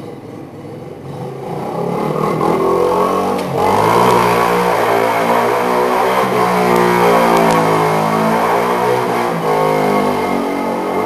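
50cc Redcat youth ATV engine revving. It climbs in pitch and loudness over the first few seconds, dips briefly, then holds at high revs with the pitch wavering up and down as the throttle is worked.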